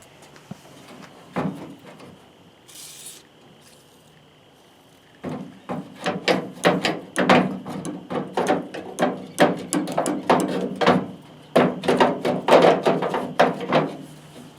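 Hand-tool work on a pickup tailgate's latch hardware: a single knock, then from about five seconds in a long run of rapid, irregular metallic clicks and knocks that pauses briefly and resumes.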